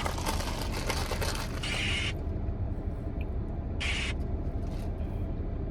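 Ice rattling in a plastic cup of iced shaken espresso as the drink is swirled to mix it, then a short slurp through the straw about four seconds in, over a steady low hum.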